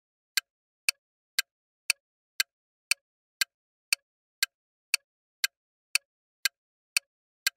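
Countdown timer sound effect ticking steadily, about two sharp clicks a second, with silence between the ticks.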